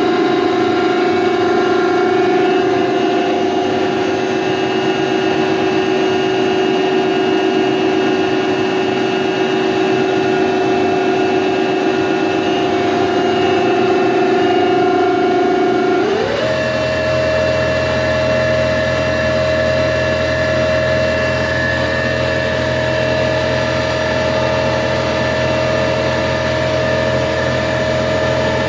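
Hyundai HIT 8 S CNC lathe running with a steady mechanical whine. About halfway through, the pitch glides quickly upward and holds at a higher steady note, with a low hum joining in.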